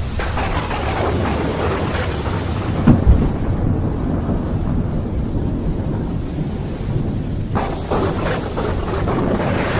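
Thunderstorm over steady rain. A crackling peal of thunder builds from the start and ends in a loud low clap about three seconds in. A lower rumble follows, and a second sharp crack of thunder breaks out about two-thirds of the way through.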